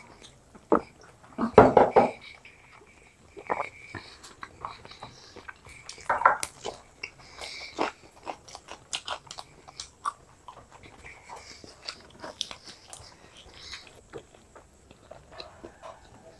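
Close-up eating sounds: biting, crunching and chewing on fried chicken lollipops, with scattered short mouth clicks and smacks. The louder bursts come about two seconds in and again around six seconds.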